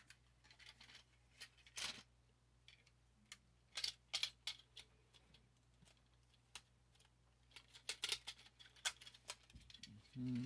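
Faint, irregular plastic clicks and snaps from a Transformers Siege Ultra Magnus action figure's joints and panels being worked through its transformation by hand, coming more thickly near the end.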